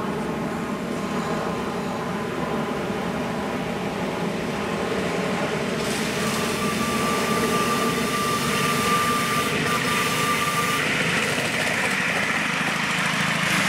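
A 5-inch gauge live-steam model of an LMS Black Five 4-6-0 locomotive running steadily along raised track with passengers, growing a little louder as it draws near. A thin steady high tone sounds for about four seconds in the middle.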